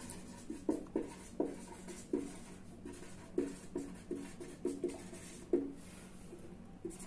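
Whiteboard marker writing on chart paper: a quick run of short pen strokes, about three a second, that stops about five and a half seconds in.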